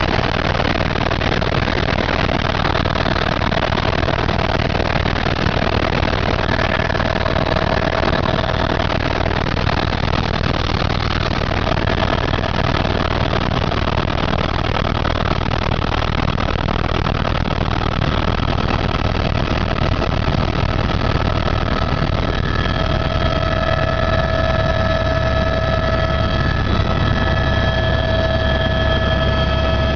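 Helicopter running, a loud, steady rotor and engine noise with a low rumble. Several steady high whining tones fade in and out over it.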